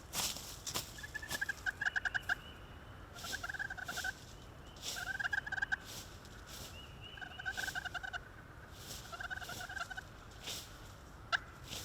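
A series of about six short, rattling turkey calls, each roughly half a second of rapid pulses, repeating every second or two, with a sharp click near the end.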